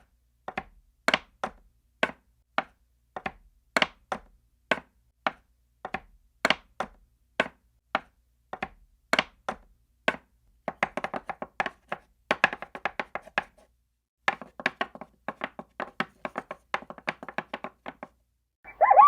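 A series of sharp, dry taps or knocks, spaced irregularly about two a second at first, then coming in quicker runs in the second half with a short pause between them.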